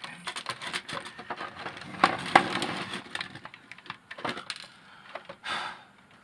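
Clicks, rattles and crunching of the robot vacuum's plastic parts being handled and pulled apart, with a denser crunching stretch about two seconds in and a short rushing burst near the end.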